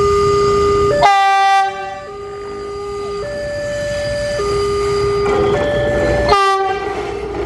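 Railway level-crossing warning alarm sounding a steady two-note electronic tone, alternating low and high about every second. The Ciremai track-measurement railcar's horn sounds over it twice as the railcar moves off: a loud blast about a second in lasting just over half a second, and a shorter one near the end.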